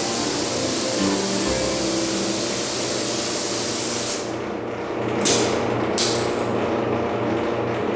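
Compressed-air gravity-feed spray gun spraying a coat of sealer onto a fiberglass camper shell: a steady hiss that stops about four seconds in when the trigger is released. Two short hisses follow about a second apart.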